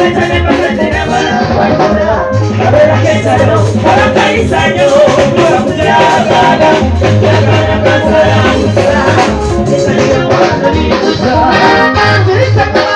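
Loud music: a song with a bass line that comes and goes in pulses of a second or two under layered instruments.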